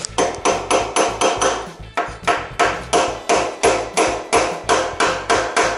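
Hammer tapping small drive rivets (hammer-drive screws) through a nameplate into a motorcycle frame: a steady run of light metal-on-metal blows, about three to four a second, each with a short ring, pausing briefly about two seconds in. The rivets are made to spread as they are driven so they hold in their holes.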